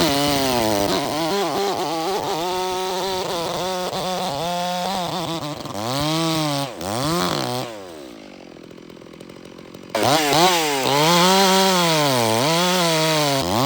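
Stihl MS460 two-stroke chainsaw running at high revs with its pitch wavering and dipping, as when cutting firewood. About eight seconds in it drops to idle for two seconds, then is suddenly revved again and swung up and down repeatedly on the throttle.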